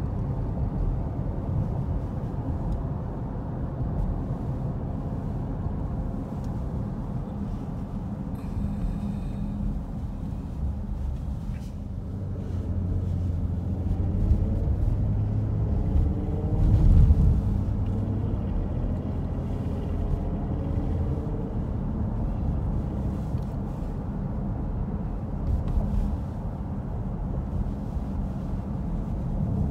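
Road and engine noise heard from inside a moving car: a steady low rumble, with the engine note rising and falling through the middle stretch and a loud low thud about seventeen seconds in.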